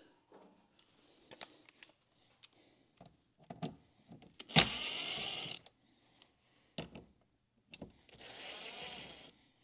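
A small power driver runs in two short bursts of about a second each, backing out the door speaker's mounting screws. Scattered clicks and knocks of handling parts come between the bursts.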